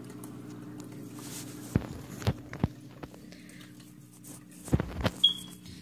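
Several sharp knocks and thumps of a phone camera being picked up and handled, in two clusters about two seconds in and near the end, with a brief high squeak at the very end, over a steady low hum.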